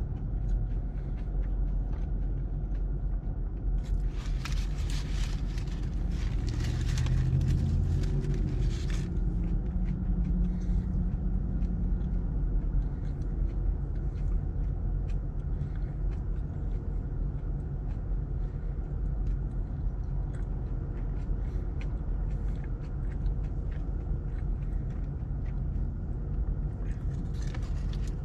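Car interior noise while driving: a steady low rumble of engine and road. About four seconds in, a rushing hiss rises for roughly five seconds while the engine note briefly climbs. A few light clicks come near the end.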